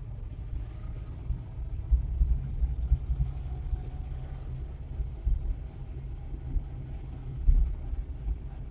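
Low, steady engine and road rumble inside the cab of an old Suzuki Carry 1.0 pickup under way, with its four-cylinder engine running at a cruise. The loudness swells unevenly in small surges.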